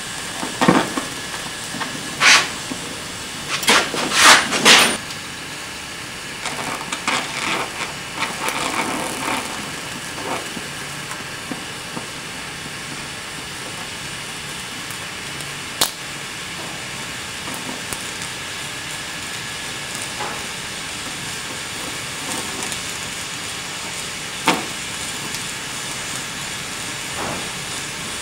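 Oxy-acetylene welding torch flame hissing steadily against a steel tube wrapped in water-soaked rags. A few loud crackles and pops come in the first five seconds, more around eight seconds, and a single sharp click later on.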